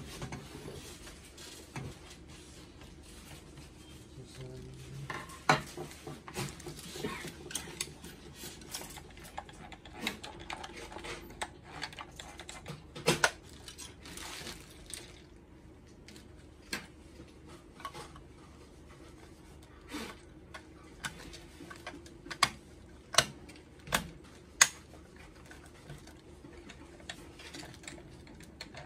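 Plastic parts of a Zebra ZC100/300 card printer's feeder assembly clicking and knocking as they are pried and handled, with scattered sharp clicks, a quick cluster of them near the end, and light rustling between.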